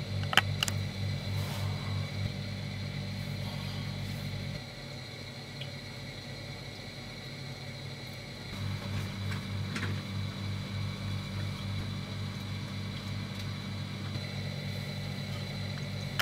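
Low throbbing hum of a motor, pulsing about three times a second, dropping away for a few seconds midway and then returning, with a couple of short clicks near the start.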